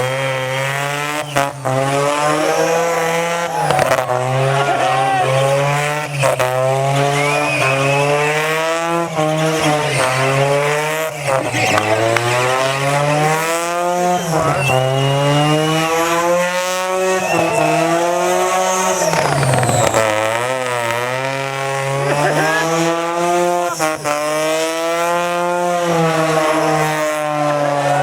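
Single-rotor Mazda rotary engine on a lawn mower running at high revs, its pitch climbing and dropping again and again as it accelerates and backs off.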